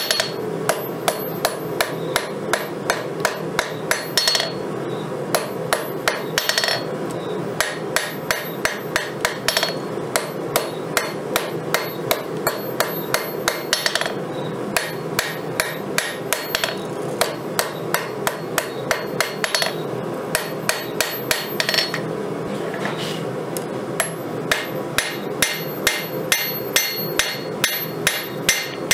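Hand forging: a hammer striking hot 5160 steel on an anvil in a steady run of blows, a few per second, each with a bright metallic ring, over a steady rushing noise underneath.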